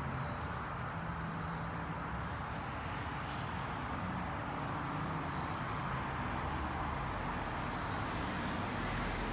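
Steady outdoor background noise of distant road traffic, an even continuous hum without breaks, with a few faint clicks about two to three seconds in.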